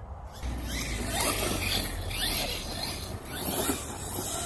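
Traxxas Kraton RC monster truck driving hard: its electric motor whines up and down in pitch over a hiss of its tyres throwing gravel. The sound comes in about half a second in and swells twice.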